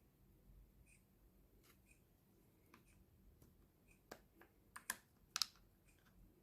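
Near silence broken by a few sharp clicks and taps, about four to five and a half seconds in, from the box and speaker being handled during unboxing. Faint ticks come about once a second throughout.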